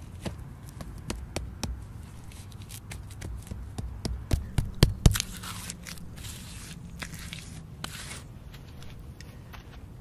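Hands working mud bricks and wet mud: a series of sharp knocks and taps, loudest about four to five seconds in, then a few seconds of scraping as the mud is smeared and smoothed by hand.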